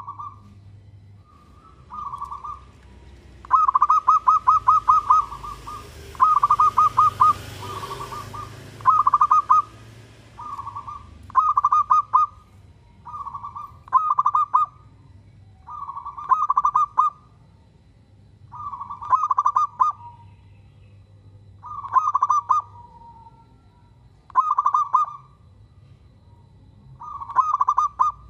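Zebra dove cooing: repeated short phrases of rapid staccato notes, one phrase every two to three seconds, some softer than others.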